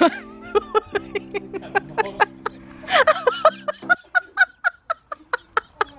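A person laughing, a long run of short 'ha' sounds. A steady low chord of tones sounds under the laughter and stops about four seconds in.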